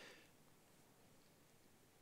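Near silence: room tone, with a faint short hiss right at the start.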